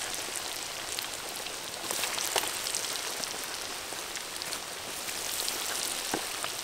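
Battered chicken legs deep-frying in a wok of hot oil: a steady sizzle with many small crackling pops.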